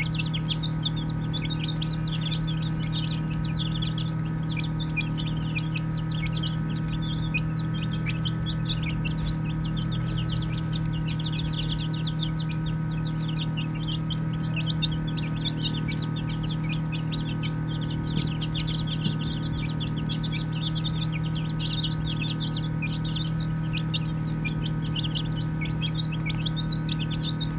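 A brood of baby chicks peeping continuously, many short high chirps overlapping, over a steady low hum.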